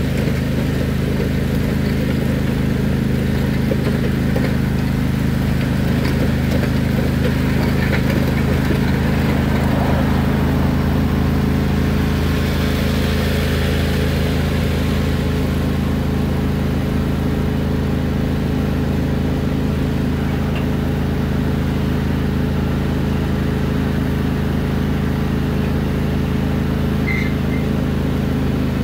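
Riding lawn mower engine running at a steady speed, its pitch held constant.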